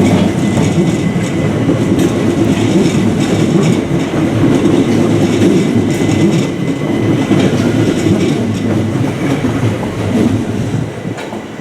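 Southern electric passenger train running along the platform: a loud, steady rumble of wheels on the rails that eases off near the end.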